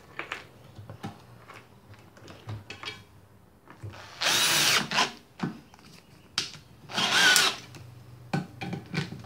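Power drill-driver running in two short bursts, about four and seven seconds in, driving the screws that hold the counterweight to the washing machine drum tight. Light clicks and knocks of handling the parts come between the bursts.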